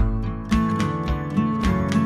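Background music: acoustic guitar strumming over a steady beat.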